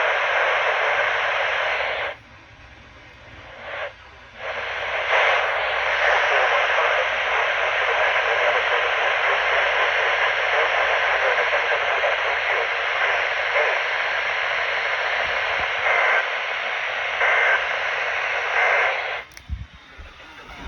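Radio static: a steady hiss of narrow-band noise from a radio receiver picking up no clear signal. It drops out for about two seconds near the start, comes back, and cuts off shortly before the end.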